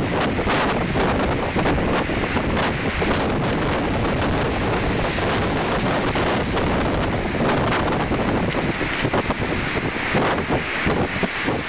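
Tropical-storm wind gusting hard and buffeting the microphone: a loud, continuous rushing roar broken by frequent thumps of wind hitting the mic.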